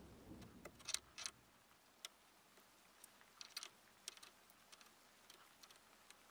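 Near silence broken by about a dozen faint, irregular light clicks from a small metal tool worked against the thin brass body of an antique blowtorch to take out its dents.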